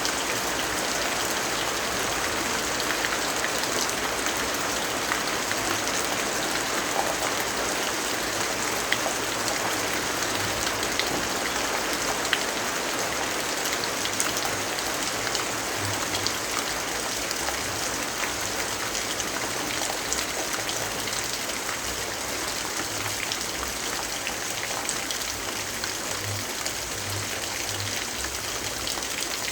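Steady rainfall, an even hiss with scattered light drip-like ticks.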